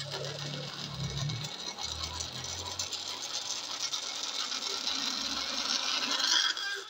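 Air rushing out of an inflated latex balloon through its neck, which is pulled wide between the fingers, making a rapid buzzing squeal as the balloon deflates. The squeal grows slightly louder and then stops abruptly near the end.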